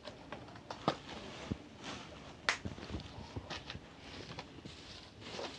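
Irregular rustling, scuffs and small sharp clicks of leaves and litter being picked up off bare dirt and handled into a woven sack, with footsteps on the earth; the sharpest click comes about two and a half seconds in.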